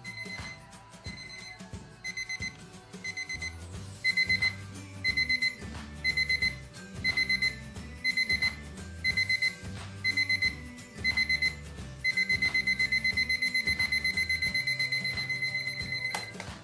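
Electronic alarm of a battery wall clock beeping at a high pitch: faint short beeps at first, then quick runs of beeps about once a second, louder from about four seconds in, turning into one unbroken run of fast beeps about twelve seconds in that stops near the end.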